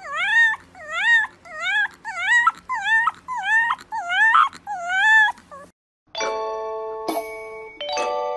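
Fluffy white puppy with its head raised, giving a quick string of about nine short, high-pitched cries, each dipping and then rising in pitch. A little before six seconds the cries stop, and a chiming ding-dong melody begins.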